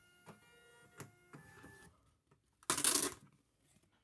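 Dymo LabelWriter 4XL thermal label printer feeding out a shipping label: a steady motor whine with light clicks that stops about two seconds in. Near the end comes a brief, loud rustle of the paper label being handled.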